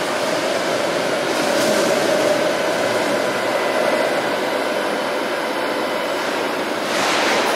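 Electric light-rail train running through an underground station: a steady rumble of wheels and motors with a steady whine through it. A short rush of noise comes near the end.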